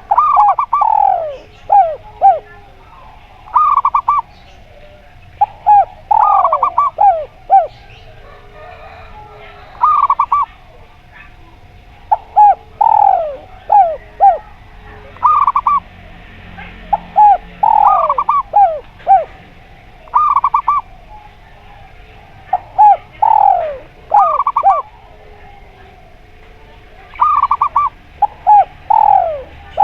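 Zebra dove (perkutut) and spotted dove (derkuku) cooing, with loud phrases repeated every two to three seconds. Each phrase is a cluster of quick swooping coo notes, often followed by a short rapid trill.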